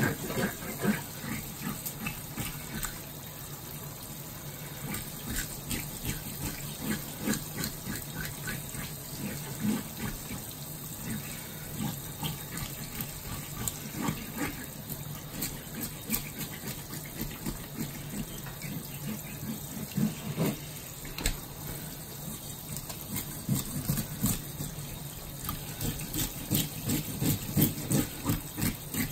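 Kitchen tap running into a stainless steel sink while gloved hands rub and rinse whole fish under the stream, with frequent short splashes and handling sounds that grow busier near the end.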